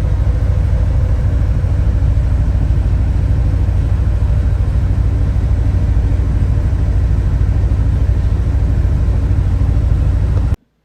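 John Deere S660 combine harvester running steadily in the field, a continuous low drone that cuts off abruptly near the end.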